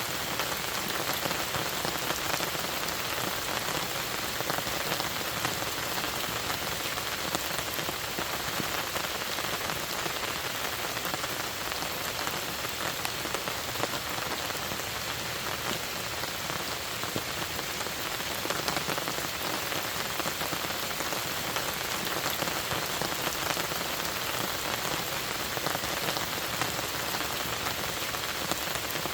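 Steady rain falling, with a dense patter of drops on the surface.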